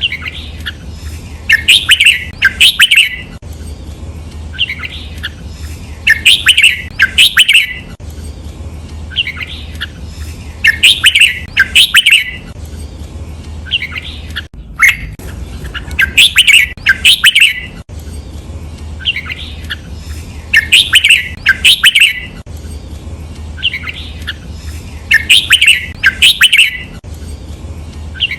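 Red-whiskered bulbul singing its 'double' song: the same short phrase of bright whistled notes is repeated about every four and a half seconds. Each phrase ends in two loud notes, over a steady low hum.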